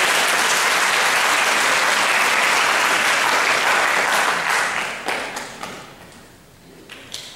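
Audience applauding: dense, steady clapping that thins out to a few scattered claps about five seconds in, then dies away.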